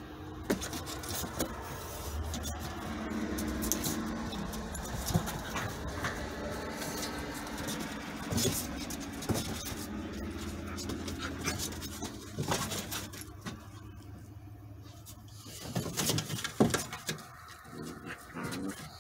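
Two border collie puppies play-fighting: low puppy growls and grunts, with claws and paws clicking and scrabbling on wooden deck boards. The scuffling gets louder near the end as they wrestle.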